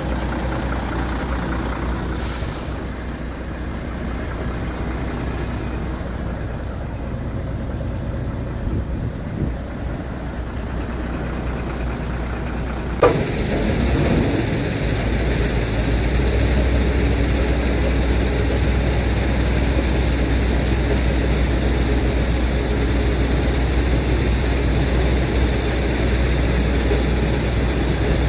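Scania P94 tipper truck's nine-litre diesel engine idling, with a short air hiss about two seconds in. About halfway through a sharp clunk comes, then the engine runs louder with a thin steady whine from the hydraulic pump as the tipper body is raised.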